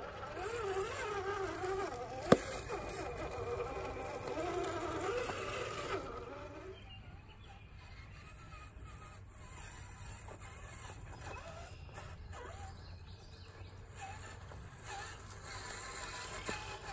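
Whine of an RC4WD TF2 scale crawler truck's electric motor and gears, the pitch wavering up and down, with a single sharp click about two seconds in. After about six seconds the whine stops and only faint ticks remain.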